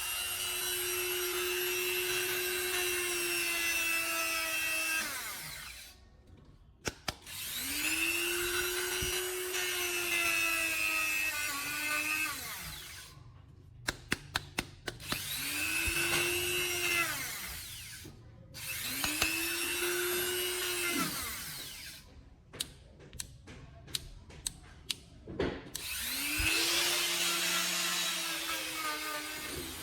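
Electric grinder motor switched on and off about five times: each run spins up to a steady whine and then winds down in falling pitch, with clicks and taps between the runs.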